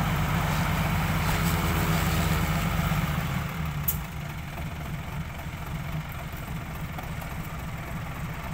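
Tipper truck's diesel engine running at raised speed with its bed tipped up to dump soil, then dropping back to a lower idle about three seconds in. A single sharp click follows just after.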